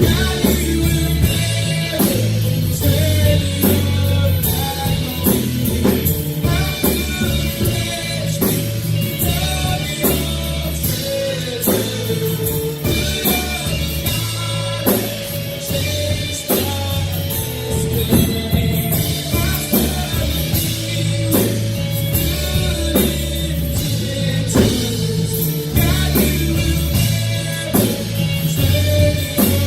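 Worship band music played live: drum kit keeping a steady beat under guitars, with sustained chords throughout.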